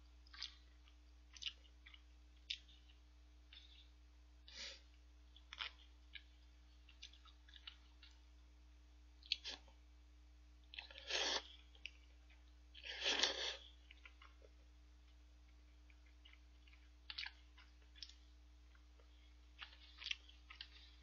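Faint sounds of eating udon noodles: chewing and small clicks, with two longer, louder slurps of noodles about halfway through.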